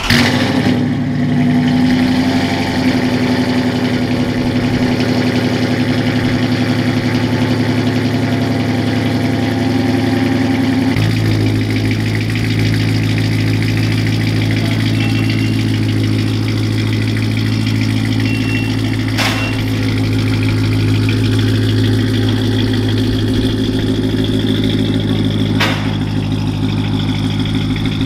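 2014 Dodge Challenger R/T's 5.7-litre HEMI V8 starting up and idling steadily through a new Karnage Performance full exhaust. The tone turns deeper about eleven seconds in.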